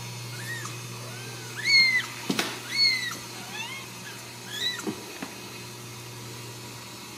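Newborn Ragdoll kitten mewing: about six short, high-pitched cries that rise and fall, loudest about two and three seconds in, then tailing off. A light knock falls between the loudest cries.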